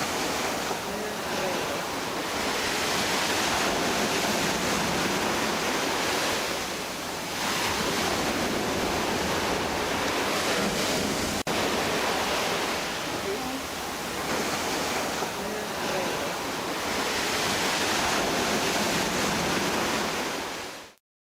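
Ocean surf washing in and out, a steady hiss that swells and eases every few seconds, cutting off abruptly near the end.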